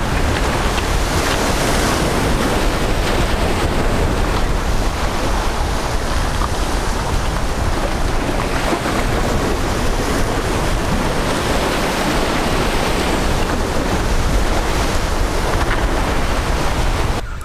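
Wind buffeting the microphone with a heavy low rumble, over the steady wash of waves against the jetty.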